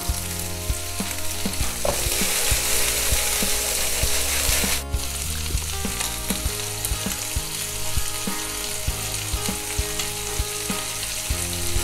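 Whole shell-on prawns and garlic cloves sizzling in hot oil in a frying pan, a steady hiss dotted with small crackles of spattering oil. The sound breaks off for an instant about five seconds in.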